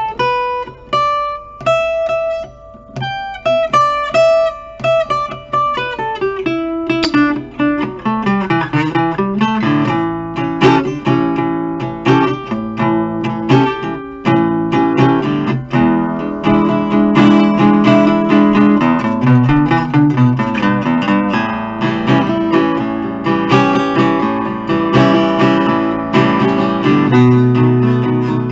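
1970 Guild Artist Award archtop guitar played acoustically, without an amp: single-note melody lines for the first several seconds, then strummed and picked chords for the rest.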